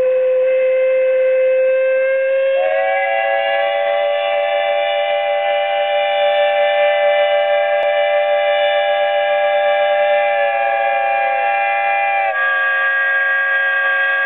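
Steam traction engine's whistle blowing one long continuous blast. It starts as a single steady note, swells about two and a half seconds in to a fuller chord of several notes, and thins to a narrower chord about twelve seconds in.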